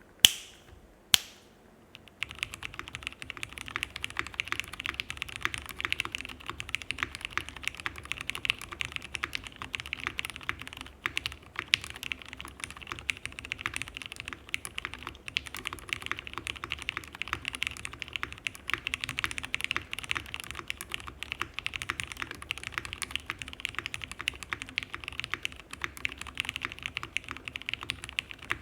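Fast, continuous typing on a top-mounted Typ 65+ mechanical keyboard with lubed and filmed Cherry Hyperglide Black linear switches and GMK keycaps. Two sharp clicks come first, then the dense stream of keystrokes starts about two seconds in.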